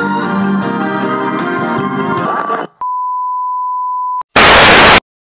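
Organ-led music that stops a little past halfway, followed by a steady test-pattern beep lasting over a second, then a short, very loud burst of TV static hiss that cuts off suddenly.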